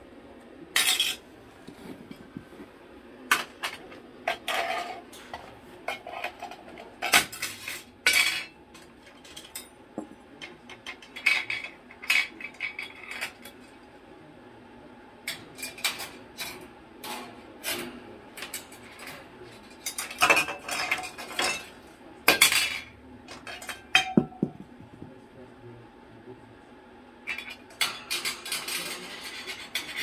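Moluccan cockatoo working the metal latch of its stainless-steel cage door with its beak: irregular metal-on-metal clanks and rattles, some loud and sharp, coming in bunches.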